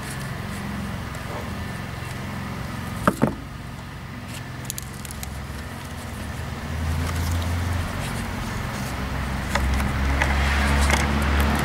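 Gloved hands pressing potting soil around a tomato seedling, with faint crackling and scraping. Under it runs a steady low rumble that swells about seven seconds in and again near the end, and there is a short knock about three seconds in.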